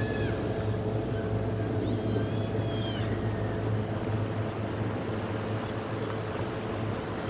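Downtown street ambience: a steady low hum of vehicle engines and traffic, with a few short high whistles near the start and about two to three seconds in.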